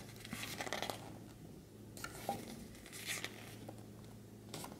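Pages of a thin paper booklet turned by hand: a few faint, soft paper rustles and swishes.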